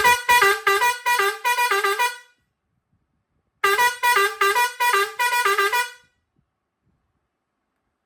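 Pioneairs 217S two-pipe steel-trumpet digital air horn playing a quick tune of short, stepping horn notes. After a pause of about a second and a half, it plays the tune again.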